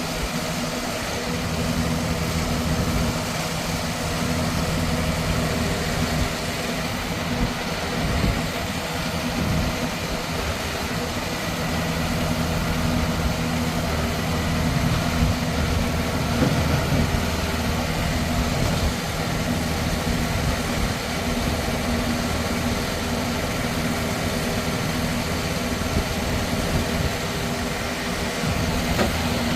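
Engine of a 1998 R. M. Johnson E-Z Log Baler Model 5 crusher/baler running steadily.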